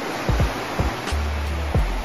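Background music with a beat: drum hits and deep sustained bass notes over an even hiss.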